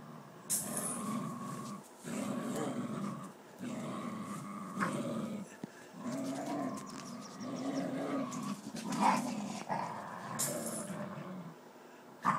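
Dogs growling during a tug-of-war game over a plush toy, in repeated bouts of a second or so broken by short pauses, with a few short sharper sounds among them.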